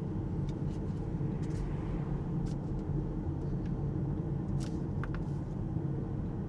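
Steady low rumble of tyre and road noise heard inside the cabin of an Alpine A390 electric car at around town speed, with no engine sound. A few faint, brief ticks come through the middle.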